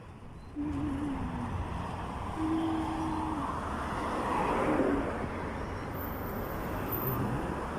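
Road traffic on a busy city street: steady tyre and engine noise, swelling as a vehicle passes about four to five seconds in. Two short, low, steady tones sound about a second in and again near three seconds.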